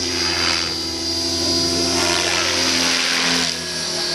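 Align T-Rex 600E electric RC helicopter in flight: a steady high whine from the electric motor and gears over the rotor blades. It grows louder through the middle and drops off sharply about three and a half seconds in.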